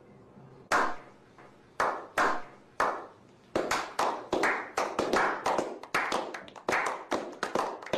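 A small group of men clapping a slow clap: single claps about a second apart, then faster, fuller clapping from about three and a half seconds in.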